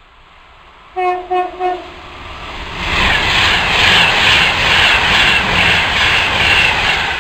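Express passenger train sounding three short horn blasts about a second in, then passing close at speed with a loud rush and a regular beat of wheels and bogies going by.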